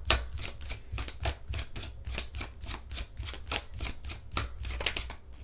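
A tarot card deck being shuffled by hand: a quick, irregular run of card slaps and clicks, about five a second.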